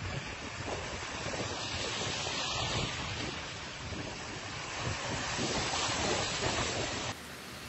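Cars wading through deep flood water on a street, their tyres pushing and splashing the water in a steady sloshing rush, with wind buffeting the microphone. About seven seconds in it cuts to a quieter, even hiss.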